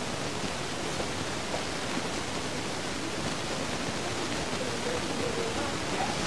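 Steady hiss of the recording's background noise, even and unchanging.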